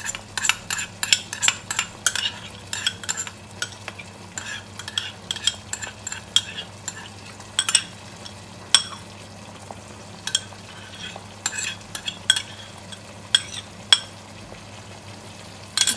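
Metal spoon scraping and tapping inside a small glass, with many irregular sharp clinks, as onion paste is emptied into a pot of cooking tomato masala.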